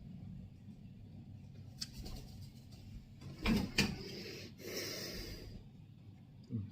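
Faint knocks and scuffs, then a brief rustle about five seconds in, as a pet Alexandrine parrot flies over and lands by the phone.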